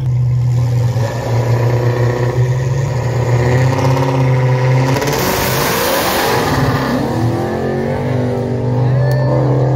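Two Dodge drag cars rumbling loudly at the start line, engines revving. About five seconds in, one car launches with a loud blast, and its engine note climbs as it accelerates away.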